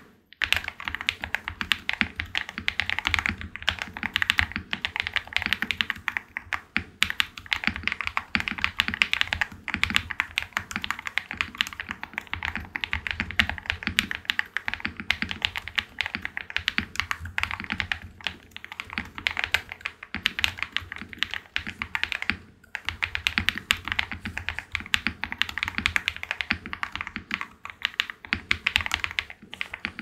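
Ajazz AK820 Pro mechanical keyboard with hand-lubed KTT Kang White V3 linear switches, typed on in a fast, steady stream of keystrokes, with a brief pause about two-thirds of the way through. The keyboard has band-aid, case foam and stabilizer mods, giving a deep, marbly typing sound.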